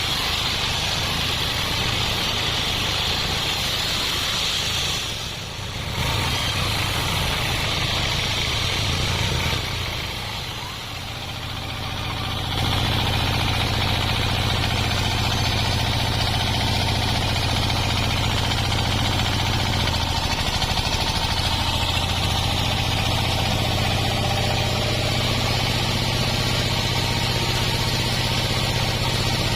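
Engine-driven sawmill machinery running with a steady hum. A higher hiss is present for the first twelve seconds, broken by two short dips, and from about twelve seconds in the hum runs steadier and slightly louder.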